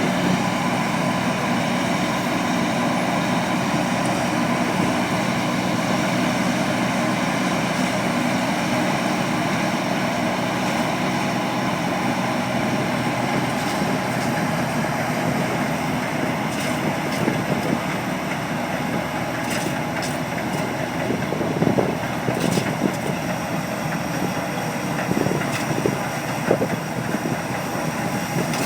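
Diesel engine of heavy farm machinery running steadily, with a few short knocks in the second half.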